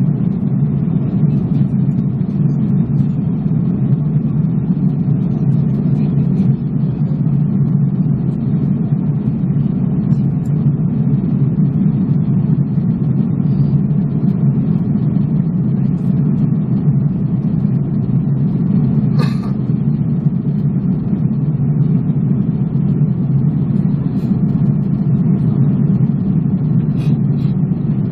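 Airbus A330-300 cabin noise in cruise: a steady low rush of jet engines and airflow. A brief higher-pitched sound cuts in about two-thirds of the way through.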